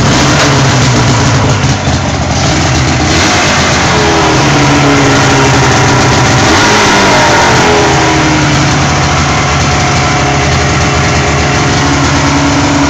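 1980 Ski-Doo Blizzard snowmobile's two-stroke engine running loudly just after being started with a squirt of primer, its pitch rising and falling a little as the revs change partway through.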